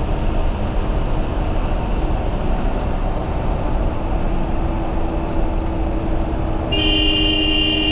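Haryana Roadways bus driving on the highway, heard from the front of the cabin: steady engine and road noise. Near the end a steady tone sounds for about a second.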